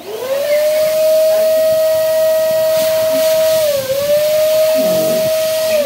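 Electric balloon pump running and inflating a balloon: the motor spins up at the start into a steady whine over a rush of air. The pitch dips briefly about four seconds in and starts to fall right at the end as the pump winds down.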